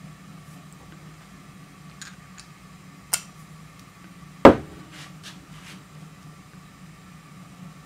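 Welded steel socket adapter handled on a workbench: a few light metal clicks as a hex-shank driver is fitted into it, then one sharp metal knock about halfway through as it is stood on the bench, followed by a few faint ticks. A steady low hum runs underneath.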